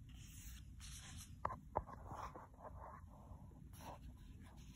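Faint rustling and swishing of a paperback book's paper page being turned, with two quick sharp clicks about a second and a half in.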